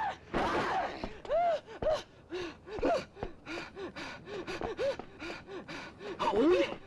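Two kung fu fighters' quick string of short shouts and grunts, several a second, mixed with sharp hits of punches and blocks, as dubbed into an old martial-arts film soundtrack.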